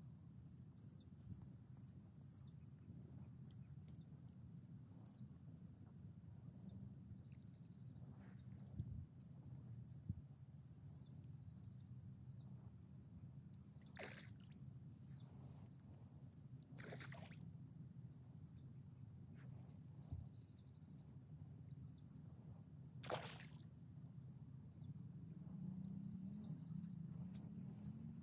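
Catfish feeding on floating fish feed at a pond's surface: a few faint splashes and slurps, the clearest about halfway in and again two-thirds of the way through, over low steady outdoor noise.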